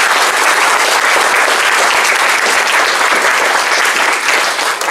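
Audience applauding: many people clapping in a dense, steady wash that begins to thin out near the end.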